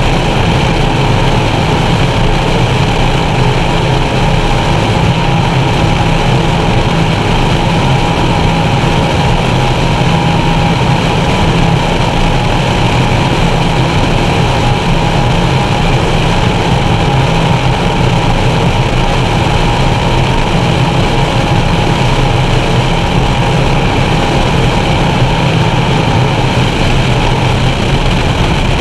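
Engines of a Skater 368 Supercat racing catamaran running at race speed, a loud, steady drone heard from inside its enclosed cockpit, mixed with the rush of the hull over the water.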